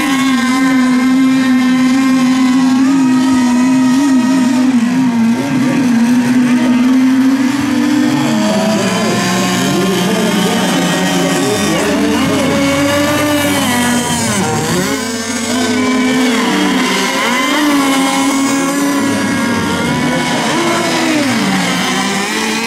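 Several radio-controlled racing boats' engines running at high revs together: one high, steady whine for about the first eight seconds, then several overlapping engine notes sliding up and down in pitch.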